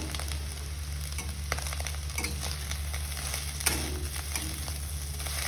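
Cooked rice being stir-fried in a kadhai with egg and spring onion: a spatula scrapes and tosses it against the pan with scattered clicks over a low sizzle, and a steady low hum underneath.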